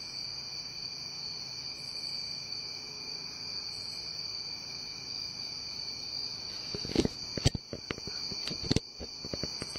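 Night-time crickets chirping in a steady high-pitched chorus. From about seven seconds in, a run of sharp knocks and clicks cuts in over it.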